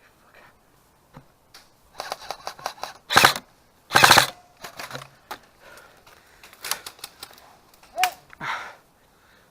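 Airsoft guns firing: scattered shots, a quick run of rapid clicking shots about two seconds in, and a few louder single cracks.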